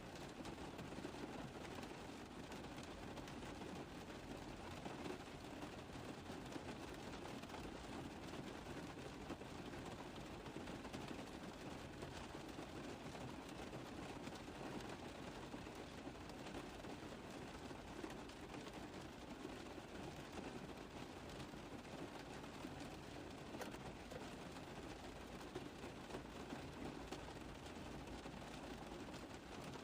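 Rain tapping on a car roof: a steady, dense patter of many small drops.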